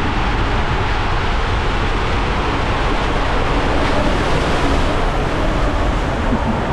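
Steady, loud rush of splashing water in an indoor waterpark.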